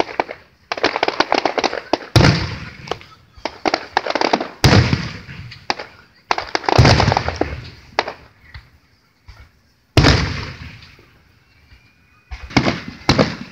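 Aerial firework shells bursting overhead in a rapid series of loud booms, about half a dozen, several followed by a run of quick crackling.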